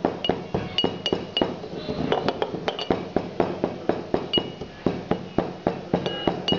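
Brass pestle pounding in a small brass mortar: quick repeated strikes, about three a second, each a sharp metallic clink, some with a short bright ring.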